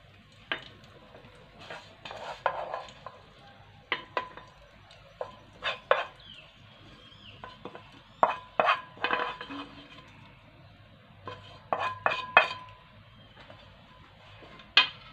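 A kitchen utensil clinking and scraping against a pan and a bowl as stuffed dates in olive oil are spooned from one to the other. The clinks come irregularly, a few every couple of seconds, and some ring briefly.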